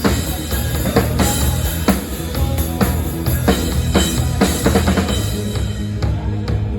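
Live band playing a rock song: drum kit strikes over steady bass and electronic backing sounds, with the drums thinning out near the end.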